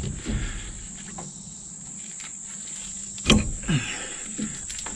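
Crickets chirping in a steady high drone, with a sharp knock about three seconds in and a few softer bumps.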